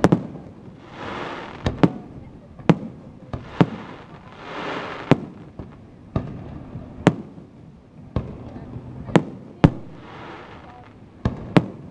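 Aerial firework shells bursting in a steady barrage: about a dozen sharp bangs, some in quick pairs, with three stretches of rushing noise lasting about a second each in between.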